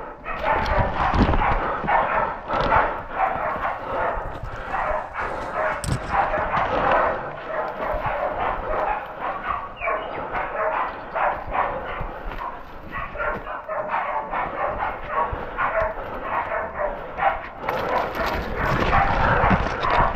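Bay dogs barking rapidly and without pause, the barks overlapping and growing louder near the end. This is the sound of pig dogs baying, holding a wild boar.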